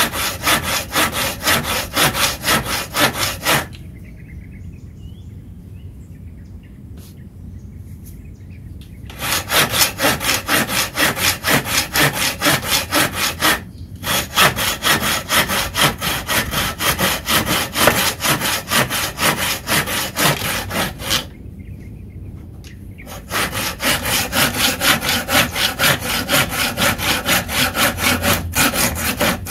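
Tekiro folding hand saw cutting through a wooden block with rapid back-and-forth strokes, about three a second. The sawing stops for about five seconds roughly four seconds in, breaks briefly in the middle, and stops again for about two seconds a little over twenty seconds in.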